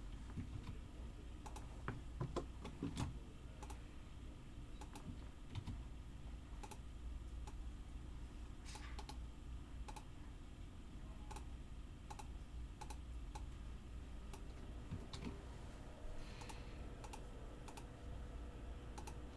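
Scattered clicks of a computer keyboard and mouse, irregularly spaced with a short flurry about two to three seconds in, over a low steady hum.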